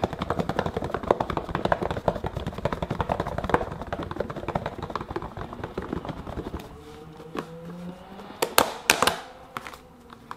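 Lidded plastic food box shaken hard with wool balls and a little warm soapy water inside, a rapid rattling clatter as the wool is soaked for wet felting. The shaking stops about six and a half seconds in, and a few sharp plastic clicks follow near the end as the lid comes off.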